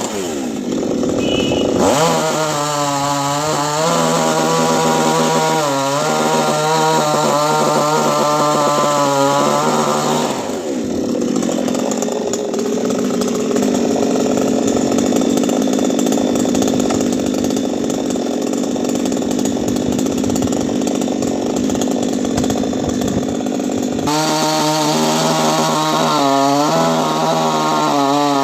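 Two-stroke chainsaw running at high revs, its pitch dipping again and again as the chain bites into the wood. For the middle stretch the engine tone gives way to a steady, harsh cutting noise.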